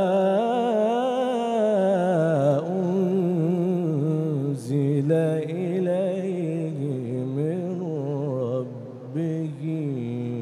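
A man reciting the Quran in the melodic, ornamented style of tajwid, drawing the verse out in long wavering notes and slides from one pitch to the next.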